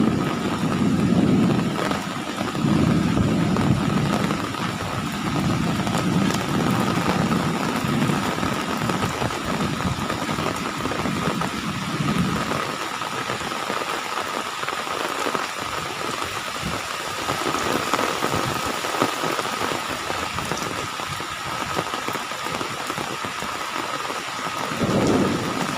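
Heavy tropical downpour hissing steadily, with thunder rumbling in rolling swells for about the first twelve seconds. The rain goes on alone after that, and another low rumble comes in near the end.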